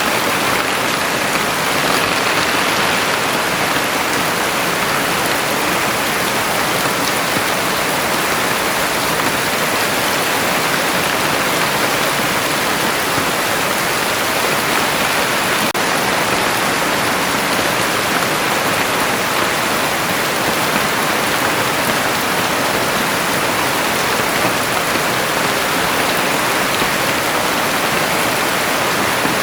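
Heavy rain falling steadily, a dense even hiss without distinct drops or thunder.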